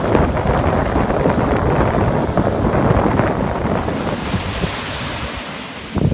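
Rough sea waves breaking and washing on the shore, with wind buffeting the microphone. About four seconds in, a hissing wash of surf comes up as the low rumble fades.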